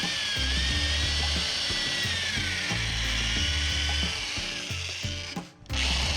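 Power drill running screws into the boat's floor boards, its motor whine rising and falling with the trigger, with a ratcheting chatter. Background music with a stepping bass line plays underneath, and the sound cuts out briefly near the end.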